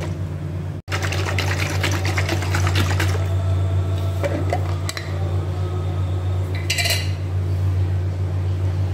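Glass jar of salad dressing shaken hard, liquid sloshing with rapid rattles, for about the first three seconds. Then quieter handling as the metal lid is unscrewed, and the dressing poured onto the salad near the end, all over a steady low hum.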